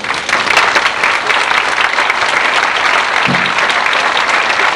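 Audience applauding steadily, dense clapping that breaks out just as it begins.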